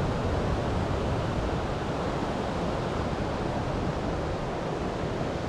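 Steady rush of ocean surf and wind, an even roar with no distinct events.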